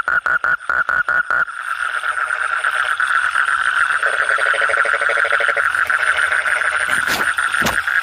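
Asian common toad calling with its vocal sac puffed out: a fast run of rapid pulses that, about a second and a half in, runs together into a continuous dense trill with further frog calls layered over it. Two sharp knocks come near the end.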